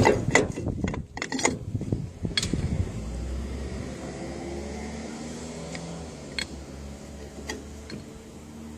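Metal clicks and knocks as a universal joint's bearing cup and the shaft yoke are handled and fitted. After about three seconds a low steady hum sets in, with a few light ticks.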